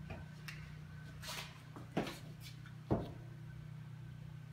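Wall light switch clicking, the sharpest click about three seconds in, among a few lighter knocks, over a steady low hum.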